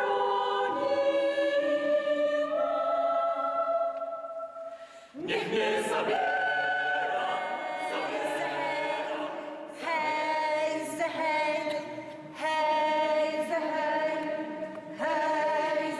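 Mixed choir of young men and women singing unaccompanied in a large church, holding sustained chords. One phrase fades out about four seconds in, and the choir comes in together on a new phrase about a second later.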